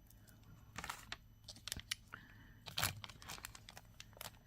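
Plastic bead packaging crinkling and rustling as it is handled, with scattered light clicks; the loudest rustles come about a second in and again near three seconds.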